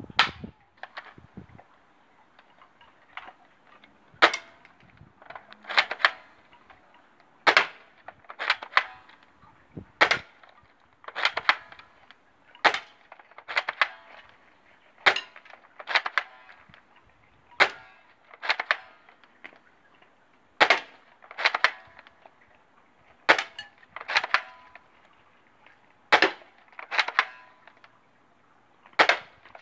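A BB gun fired shot after shot at a steady pace, about one shot a second. Each shot is a sharp crack, and many are followed by a short ring.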